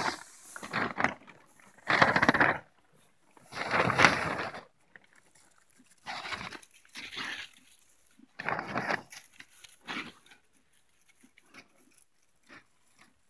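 Domestic pig grunting in a series of short grunts about a second apart, louder at first and fading out near the end.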